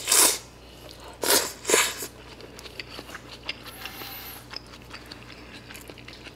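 A person slurping rice noodles from a bowl of pho, three short sucking slurps in the first two seconds, then chewing the mouthful with small wet clicks.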